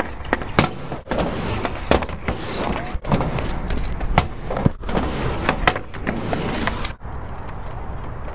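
Skateboards rolling over asphalt and a quarter pipe, with many sharp clacks and slaps of boards landing and striking the ramp; after about seven seconds the clacks stop and only the rolling rumble remains.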